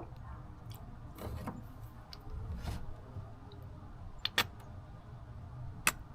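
Light clicks and taps of small objects being handled, a few sharp ones near the end, over a low steady hum.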